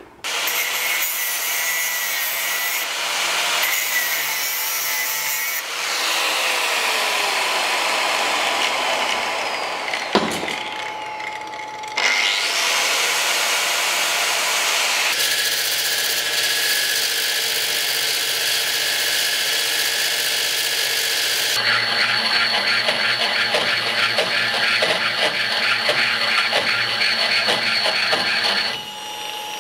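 Power tools working metal in a run of cut-together clips: an angle grinder and a drill or die grinder with a bit, each with a steady motor whine, grinding against the metal spear tip. A motor winds down about six seconds in and another spins up about twelve seconds in, and the sound changes abruptly at each cut.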